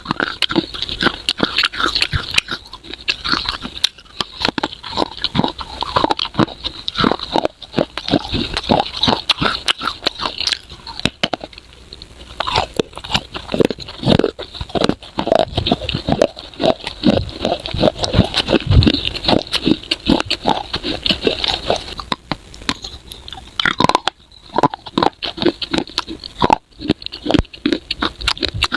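Close-miked biting, crunching and chewing of baked edible clay, with a dense, irregular run of crisp crunches.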